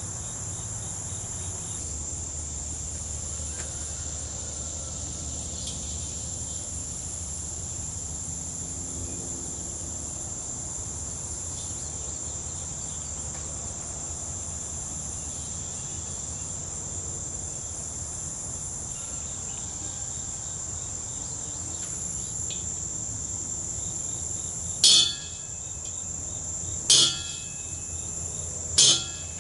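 Steady high-pitched insect chirring throughout. Near the end, three short, sharp metallic strikes on the steel top of a propane-tank drum, about two seconds apart, each with a brief ring.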